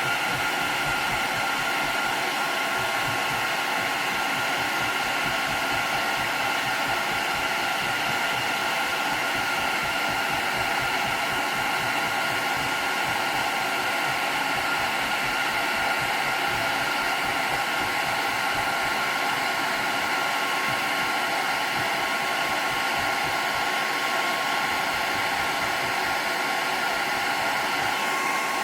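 Handheld hairdryer blowing steadily on high, a constant rushing whoosh with a thin motor whine over it, used to soften old glue on a hardwood floor.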